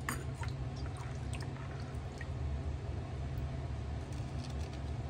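Small splashes, drips and wet clicks as a hand picks thin raw potato slices out of a bowl of water and works them onto a bamboo skewer, over a steady low hum.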